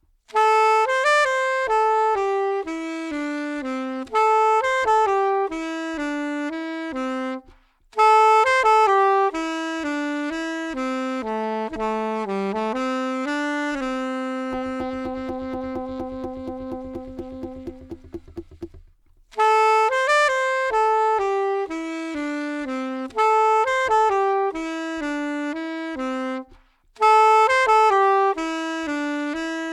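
Saxophone playing a slow melody in repeated falling phrases with short breaks between them. About halfway through, a long held low note wavers rapidly for a few seconds and then stops before the melody resumes.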